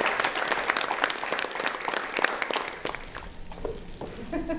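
Audience applauding, fading away about three seconds in.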